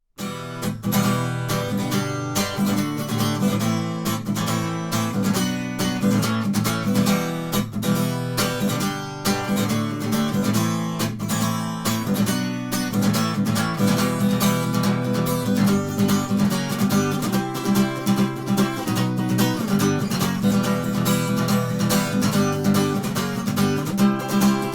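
Acoustic guitar strummed in the gallop pattern: quick down-up-down triplets with the last downstroke accented, playing the song's chords in a steady, driving rhythm.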